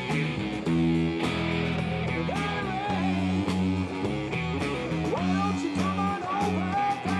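Live rock band playing: electric guitars hold sustained chords over drums while a melody line slides up and down in pitch above them.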